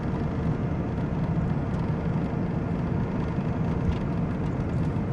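Steady road and engine noise from a moving van, heard from inside the cab.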